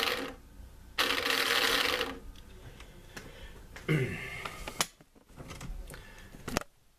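Raymarine ST4000+ autopilot drive motor and gearbox, belt removed, run from a jumper battery: a lot of noise, cutting off about a quarter second in, then running again for about a second before stopping, followed by a few light clicks. With the belt and rollers out of the drive, the noise comes from the motor and gearbox unit itself.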